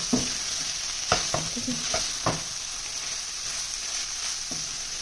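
A spoon stirring minced mutton keema in a hot pot, the meat sizzling steadily, with several knocks and scrapes of the spoon against the pot in the first half.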